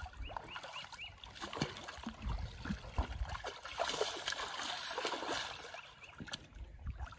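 Snagged paddlefish (spoonbill) thrashing at the water's surface on a tight line, throwing up irregular splashes of varying size.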